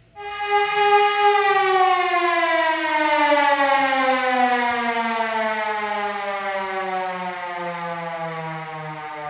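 A siren winding down: one long tone that starts suddenly, then falls slowly and steadily in pitch while fading.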